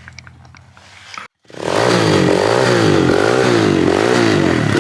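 Kawasaki KLX110 pit bike's small single-cylinder four-stroke engine revving up and down again and again. It comes in loud and suddenly after a brief dropout about a second and a half in, with a quieter low hum and light clicks before it.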